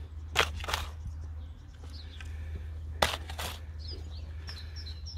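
Spade scraping into sandy soil and throwing it onto a potato ridge: two pairs of short scraping hits, about three seconds apart, over a steady low rumble. Near the end a bird chirps a quick run of short high notes.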